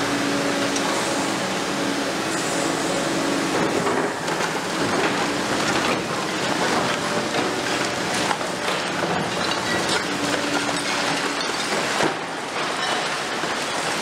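Demolition noise from a Liebherr R 950 Demolition high-reach excavator breaking into a concrete building: a dense, continuous clatter of crunching concrete and falling debris with many sharp cracks, over a steady hum that comes and goes.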